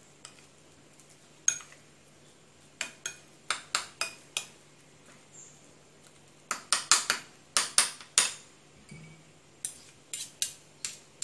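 Metal spoon clinking and scraping against a ceramic bowl in irregular clusters of sharp knocks while mixing a minced shrimp-and-pork filling.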